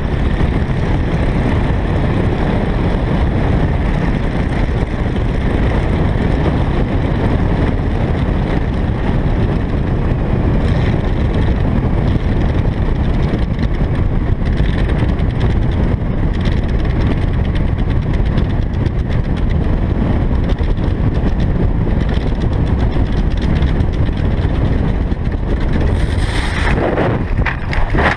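Loud, steady rush of air past a wing-mounted camera on a Nieuport 28 replica biplane making a forced landing after its Rotec R3600 radial engine failed. Near the end, a short, sharper burst of noise as the landing gear ploughs into tall grass.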